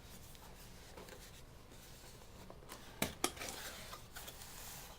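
A small cardboard module box being handled and opened, with faint rustling, two sharp clicks about three seconds in, then a brief rustle of packaging.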